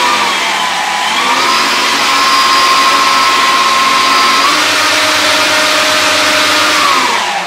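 Four electric motors of a radio-controlled B-17 model spinning their propellers near full throttle: a loud, steady whine of several close pitches. The pitch dips briefly about a second in, shifts again midway, and starts winding down near the end as the throttle is pulled back.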